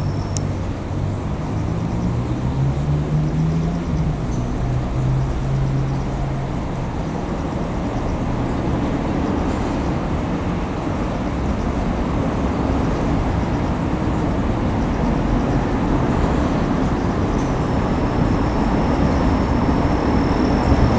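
Steady rumble of a railway vehicle moving slowly through a depot, with a low engine tone that rises a couple of seconds in and then holds steady.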